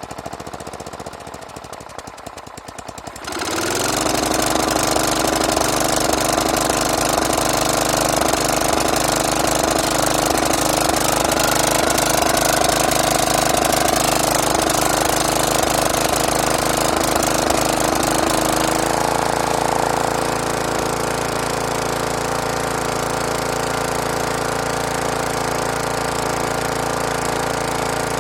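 Snapper lawn mower's engine turning over roughly for about three seconds, then catching and running loudly and steadily with a rapid pulsing beat. About 19 seconds in it settles to a slightly lower speed.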